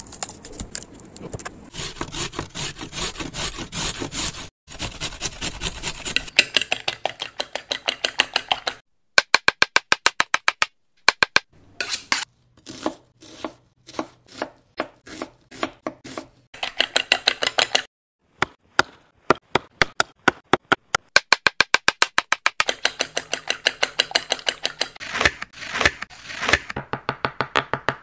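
Kitchen knife chopping onion and green chillies on a wooden cutting board: runs of quick, even strokes in several short takes split by brief gaps. It opens with scissors snipping through a plastic food packet.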